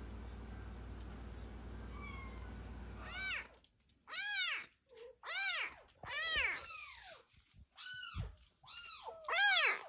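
A kitten meowing over and over: about seven loud meows, each rising then falling in pitch, starting about three seconds in after a steady low hum.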